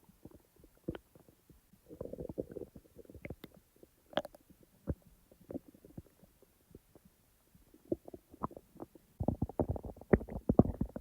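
A person's stomach rumbling and gurgling in short, irregular pops. There is a burst of gurgling about two seconds in, and a denser, louder run of gurgles near the end.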